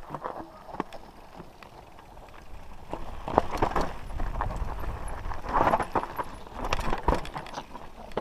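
Mountain bike rattling and knocking as it rides down a rough, rocky trail, tyres crunching over loose stones. It gets louder and busier about three seconds in, with a low wind rumble on the helmet-camera microphone.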